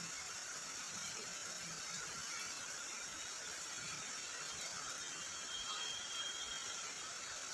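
Steady hiss and patter of heavy rain falling on the grassland. A faint thin high tone sounds briefly about six seconds in.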